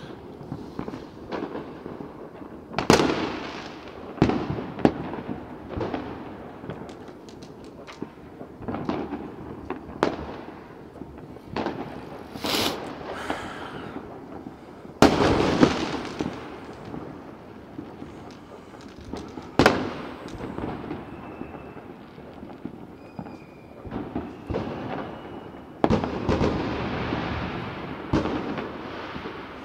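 New Year's Eve fireworks: irregular sharp bangs, the loudest about 3, 15 and 20 seconds in, over a continuous background of more distant crackling and popping, with a brief high whistle about twelve seconds in.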